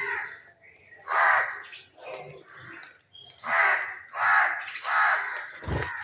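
A crow cawing: one harsh caw about a second in, then three more in quick succession from about three and a half seconds. A short low thump comes just before the end.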